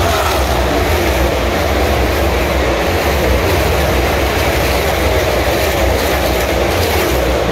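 A field of NASCAR Cup stock cars running past at speed, their V8 engines blending into a loud, steady, deep rumble.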